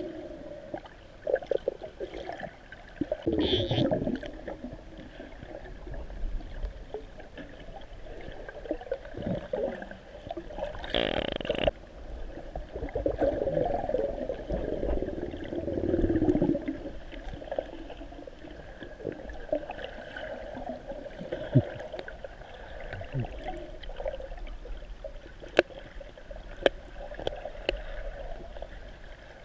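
Water gurgling and sloshing in shifting swells, with a few sharp clicks near the end.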